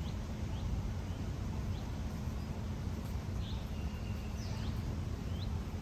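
Outdoor ambience: small birds chirping in short rising notes about once a second, with a longer whistled note about three and a half seconds in, over a steady low rumble.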